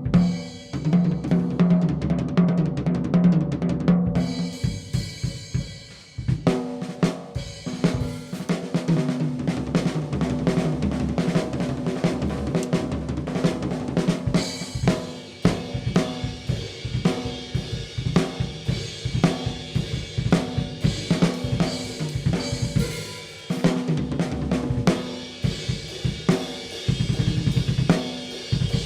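Pearl Vision birch drum kit, miked and played: a fast fill with deep ringing drums in the first few seconds, then a steady groove of kick, snare and hi-hat, with cymbals washing in more strongly from about halfway.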